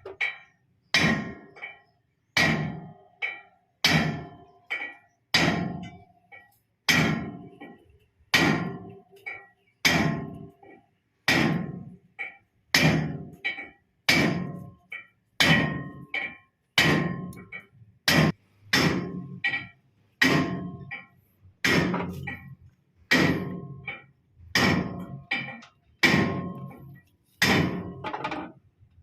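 Hammer blows on metal, about one every second and a half in a steady rhythm, each strike ringing briefly.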